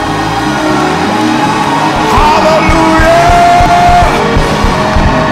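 Live gospel praise music: a band playing over a steady beat while a voice sings and holds one long note in the middle, with shouts from the worshippers.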